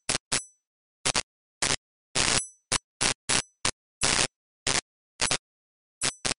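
Electric crackle sound effect for a flickering neon logo: about fifteen short, sharp bursts of buzzing static at irregular intervals, with dead silence between them. A few bursts end in a brief, faint high whine.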